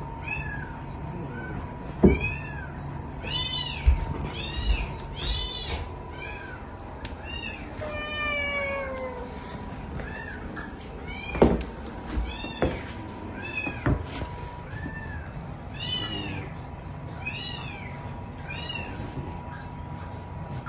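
Kittens mewing over and over in short, high-pitched cries, with one longer falling cry about eight seconds in. A few sharp knocks stand out, the loudest about two and about eleven seconds in.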